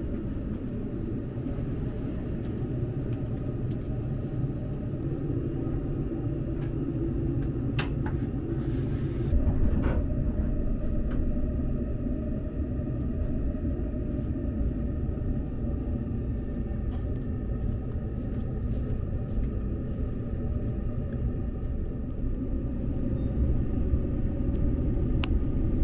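Inside the passenger car of a Relay Kamome limited-express electric train: the steady low rumble of the train running on the rails, with a brief louder rush about nine seconds in.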